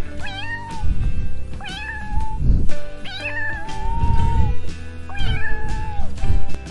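Domestic cat meowing repeatedly, about five separate meows, one of them drawn out near the middle, over background music.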